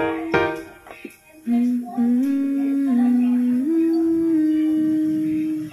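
Background music: a few quick plucked or chimed notes, a short pause, then a slow melody of long held notes that step up and down in pitch.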